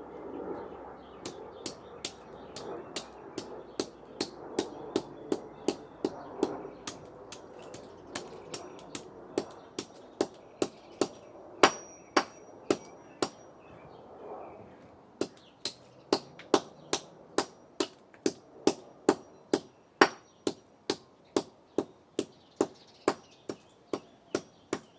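A hammer striking a Dell laptop power adapter over and over, about two blows a second, with a short pause a little past halfway; a few of the hardest blows leave a brief high ring.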